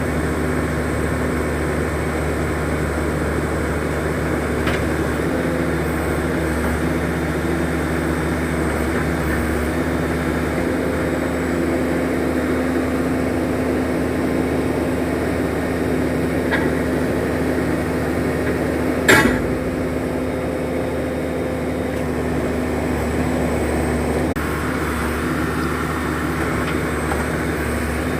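ZT-21 horizontal directional drilling rig's engine running steadily during pipe pullback, with a single sharp knock about nineteen seconds in.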